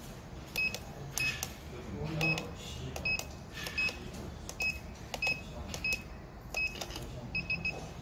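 Electronic safe-lock keypad beeping once for each key press as a code is entered, a short high beep every half-second to second with a faint click of the button. Near the end, three quick beeps as the code is accepted.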